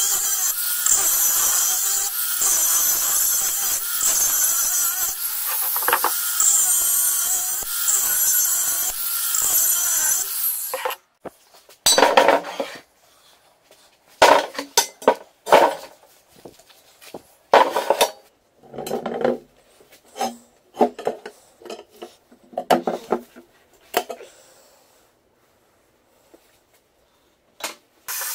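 Angle grinder with a cut-off disc cutting through a steel car wheel, a steady, loud grinding that stops about eleven seconds in. Then irregular metal clanks and knocks as the cut-apart steel rim and centre are handled on a wooden bench, going quiet a few seconds before the end.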